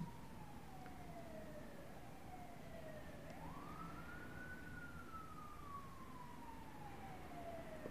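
Faint emergency-vehicle siren wailing in slow glides: the pitch falls, swings back up about three seconds in, then falls slowly again.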